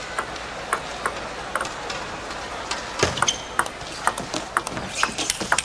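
Table tennis ball clicking off rackets and the table. A few spaced clicks come first, then a fast rally of hits from about three seconds in.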